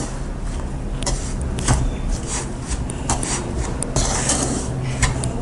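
Wooden spatula stirring and scraping dry roasted gram flour and powdered sugar around a non-stick kadai, with irregular light scrapes and taps against the pan.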